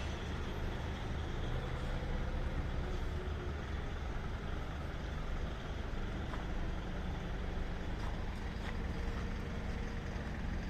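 Heavy diesel machinery running steadily: a low, even engine drone with a few faint metallic ticks.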